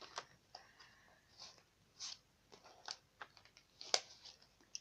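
Small clicks, taps and rustles of stationery being handled and taken out of a pencil case, with one sharper click about four seconds in.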